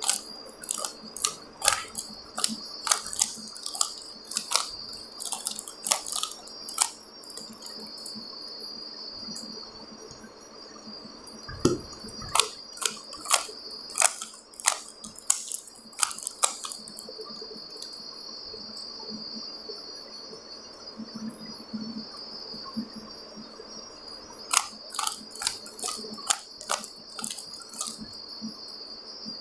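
A 3x3 Rubik's cube being turned by hand: quick plastic clicks of the layers, coming in three flurries with pauses between, over a faint steady high-pitched whine.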